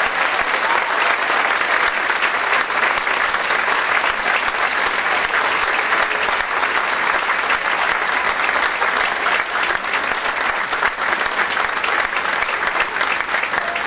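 Large audience applauding steadily: a dense, even patter of many hands clapping, easing slightly near the end.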